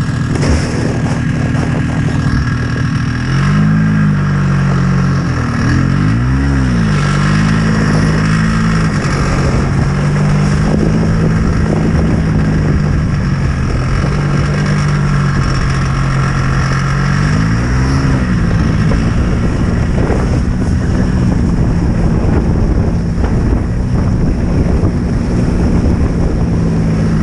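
Snowmobile engine running steadily under the load of towing, over a continuous rushing noise. Three times, twice in the first third and once past the middle, its pitch briefly drops and climbs back as the throttle eases and opens again.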